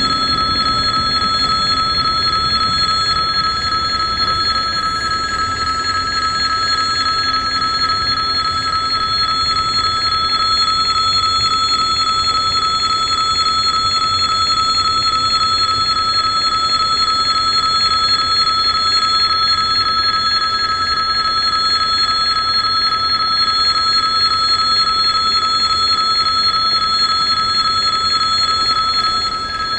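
Railway level-crossing warning bell ringing continuously with a steady, high-pitched tone, signalling that a train is approaching and the crossing is closed. The bell dips briefly near the end.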